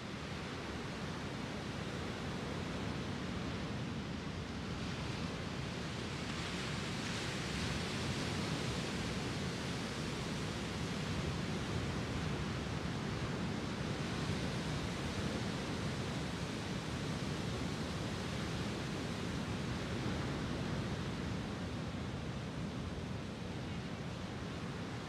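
Lake Superior waves breaking and washing up onto a sand beach: a continuous rush of surf, swelling brighter and louder about seven seconds in.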